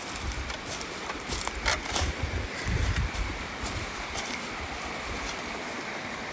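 River water running with a steady rushing, with low rumbles of wind buffeting the microphone near the start and again about three seconds in.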